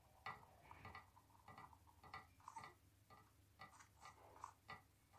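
Near silence with faint, irregular clicks, about two or three a second.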